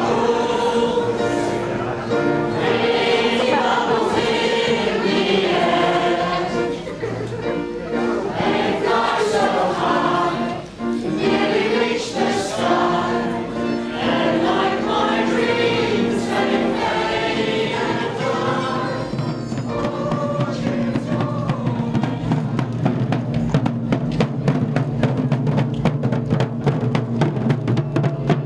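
A choir singing together, many voices in harmony. About two-thirds of the way in, the singing gives way to a steady low note with a fast, regular beat.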